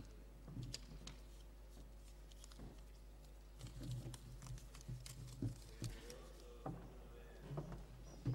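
Quiet room sound of a large hall, with scattered soft clicks, knocks and rustles and faint low murmuring.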